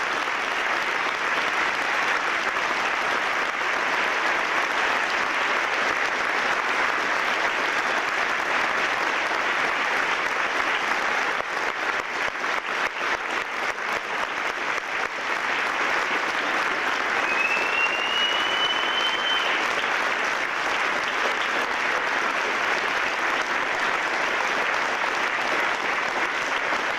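Audience applause after a concert band performance, steady clapping throughout. About two-thirds of the way in, one high whistle rises and then holds for about two seconds.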